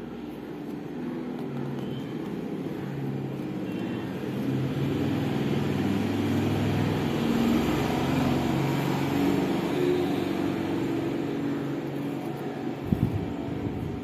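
A motor vehicle's engine hum that grows louder until about the middle and then fades, with a few faint knocks near the end.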